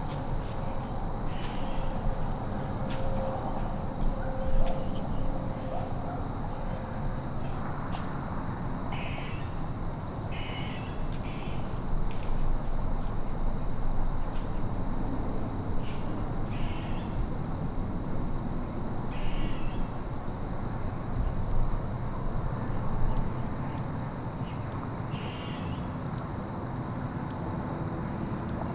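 Woodland ambience: short animal calls repeating irregularly every second or two over a steady low rumble, with a constant thin high whine and a few sharp clicks.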